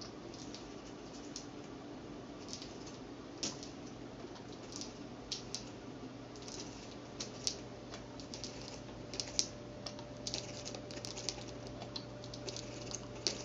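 Irregular small clicks and taps from a homemade pump well of drinking straws and wooden skewers in a plastic bottle, as its skewer handle is worked up and down, over a steady low hum.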